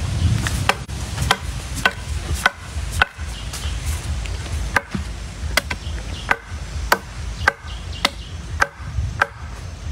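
Machete hacking into the base of a young bamboo shoot, a sharp chop about twice a second with a short pause a little before the middle.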